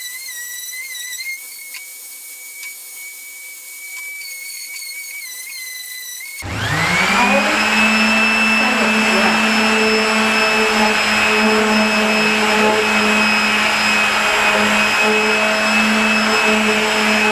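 A thin, wavering whistle-like tone, then about six seconds in an electric motor switches on. It spins up within a second and runs steadily with a high whine.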